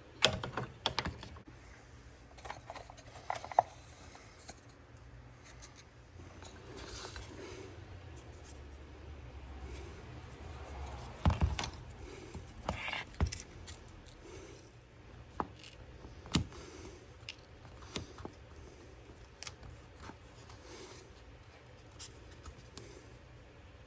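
Scattered clicks, knocks and scraping of hand tools and parts being handled during repair work on a model airplane, with a few louder knocks about eleven to thirteen seconds in and again near sixteen seconds.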